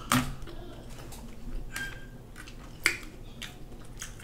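Snow crab legs being handled and snapped by hand close to the microphone: a few sharp cracks and clicks of shell, one right at the start and another just under three seconds in, over quiet handling and eating noises.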